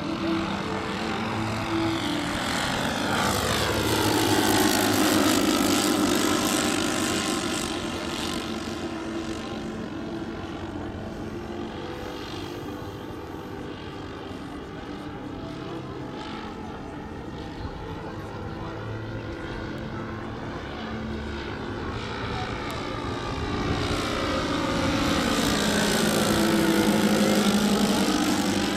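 The four propeller engines of a giant-scale radio-controlled Boeing B-17 model running in flight, with two loud passes about five seconds in and near the end and a quieter stretch between them as the model flies farther off.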